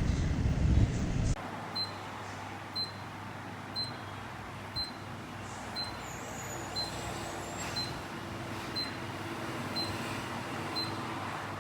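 A low rumble cuts off about a second in. Then a timepiece ticks steadily, one sharp tick a second.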